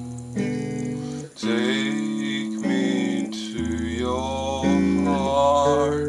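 A man singing with a wavering voice in two long phrases while playing held chords on an electric guitar, the chords changing about every second.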